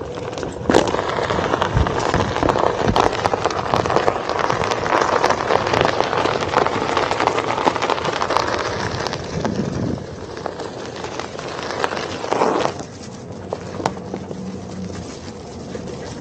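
Tyre of a one-wheel electric skateboard rolling over gravel, a dense crunching crackle full of small clicks, with dogs running alongside. It gets much quieter about 13 seconds in, when the rolling moves onto grass.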